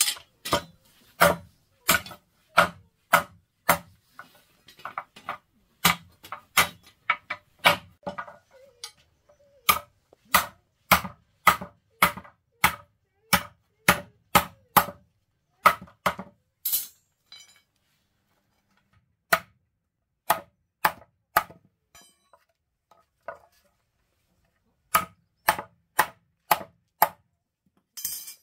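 A blade or tool chopping, striking over and over at about one and a half blows a second, in several runs separated by pauses of one to two seconds.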